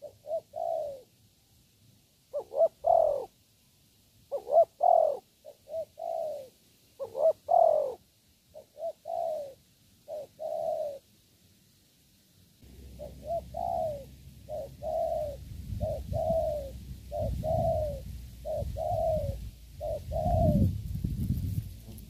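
Dove cooing. The coos come in irregular groups of two to four short notes, then settle into an evenly paced run of about ten, each dipping slightly in pitch. About halfway through, a low rumble of wind on the microphone joins.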